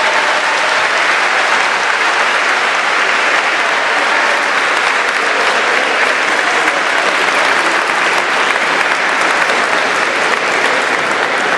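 A large audience applauding, dense clapping that holds steady throughout.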